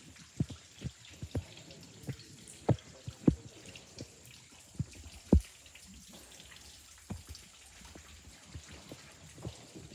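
Water dripping from a rock overhang in irregular single drops, each a short plop, with the loudest about three and five seconds in and fewer drops in the second half.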